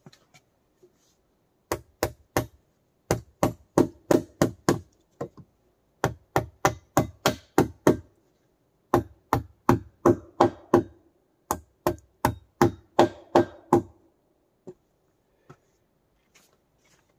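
A hand tool striking wood over and over, about three blows a second, in five runs of several blows each with short pauses between, each blow with a short ring.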